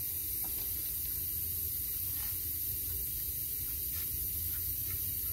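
Steady hiss with a low rumble underneath, and a few faint soft strokes as a cloth wipes down a masked-off car body panel before priming.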